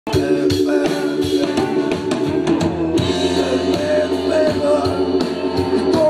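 Rock band playing: drum kit, electric guitars and a singing voice over a steady beat.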